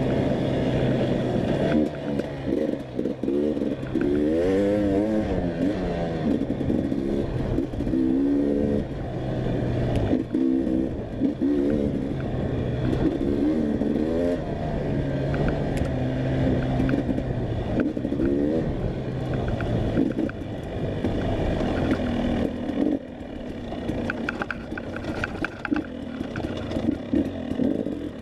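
Enduro dirt bike engine revving hard and falling back again and again as the rider works the throttle and shifts, with short steadier stretches where the revs are held. Clattering and scraping from the bike over rough ground can be heard with it.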